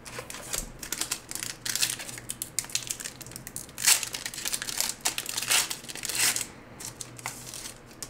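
Crinkling of a sports-card pack's foil wrapper as it is handled and torn open: irregular crackling and rustling, loudest in a few bursts around the middle.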